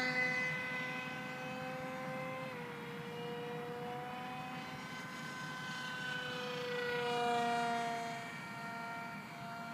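Motor and propeller of a small radio-controlled foam-board plane in flight: a steady buzzing whine that shifts in pitch as it flies, dying away at the start and swelling again as it comes closer about seven seconds in.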